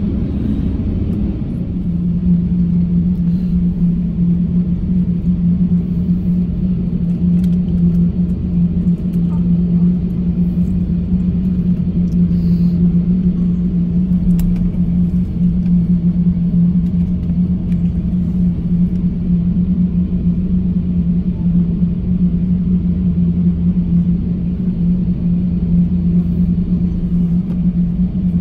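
Cabin noise inside an Airbus A350-1000 taxiing, with its Rolls-Royce Trent XWB engines at taxi power: a steady low drone with a steady hum that settles in about two seconds in.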